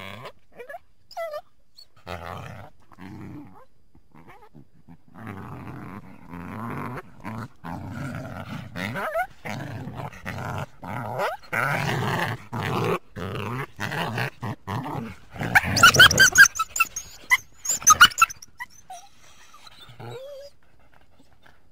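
Coyote vocalizing: a long run of short, choppy calls that builds in loudness, then a burst of loud, high-pitched yips about three quarters of the way through.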